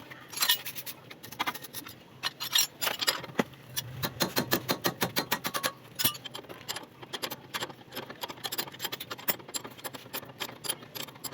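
A rapid, irregular series of light metallic clicks and clinks, thickest in the first half and thinning out later.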